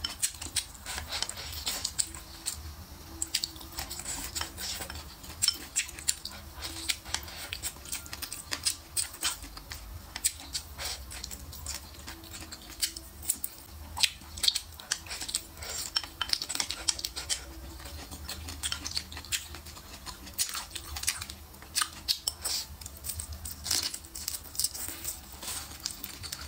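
Close-miked eating of a bowl of noodles with chopsticks: wet chewing and slurping, full of irregular small sharp clicks and smacks.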